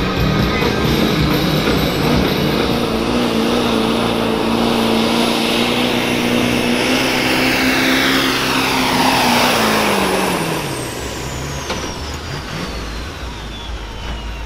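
Turbocharged diesel pickup engine running hard at high revs under full load on a truck pull. About ten seconds in the revs drop off and a high turbo whine winds down in a long falling tone as the run ends.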